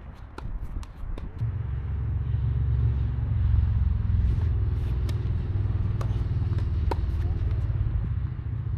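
A motor vehicle's engine rumble that starts about a second in and runs steadily, with a few sharp knocks of tennis balls bouncing or being struck.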